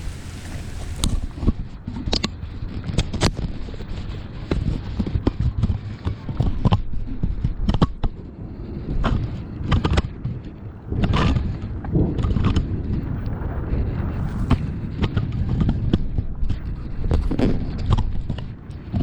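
Irregular knocks, clicks and thumps over a steady low rumble, with denser, louder stretches of knocking in the middle and near the end.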